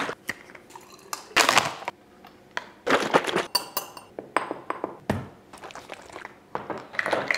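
Iced coffee being mixed in a glass jar: bottles and containers knocked down on the counter, a metal spoon clinking against the glass with one brief ringing ping, then the lidded jar shaken near the end.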